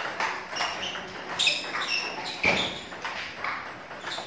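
Table tennis balls clicking off bats and bouncing on tables, with several rallies going at once. The quick, irregular knocks each carry a short high ping, and one heavier knock falls a little past halfway.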